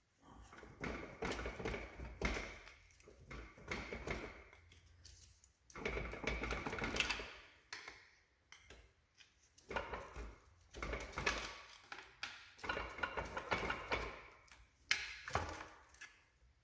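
Hand ratchet wrench clicking in repeated bursts of a second or two, with metal parts rattling, as bolts are worked loose on a Ford 8-inch rear differential.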